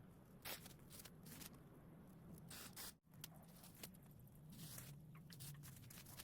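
Near silence: faint scattered rustling and crackling over a low steady hum, dropping out briefly about three seconds in.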